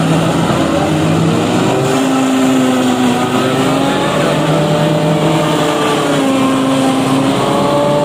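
Tractor engine driving a Fimaks MC10X forage harvester as it cuts and chops standing maize for silage: a loud, steady machine drone whose pitch sags and recovers a few times.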